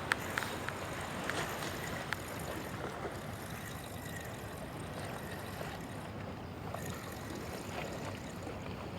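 Steady wash of wind and sea, with a few sharp clicks in the first two seconds.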